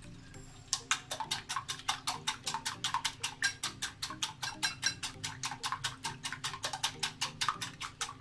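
A wire whisk beating eggs in a glass bowl: quick, even clicks of the whisk striking the glass, about six a second, starting just under a second in.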